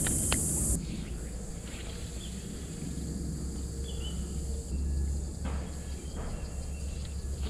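A released bream splashing away at the water's surface, a brief hiss that cuts off under a second in. Then steady insect drone with a low rumble underneath.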